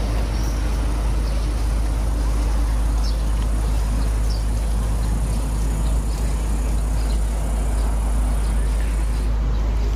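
Steady outdoor background noise dominated by a deep, even rumble, with a faint hiss above it and no distinct event.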